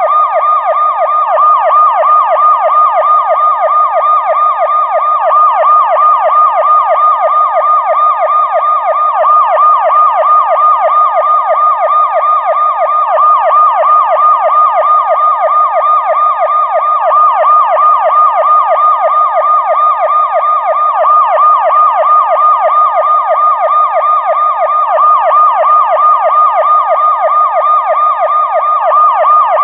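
Electronic police-car siren in a fast yelp, its pitch sweeping up and down several times a second, steady and unbroken.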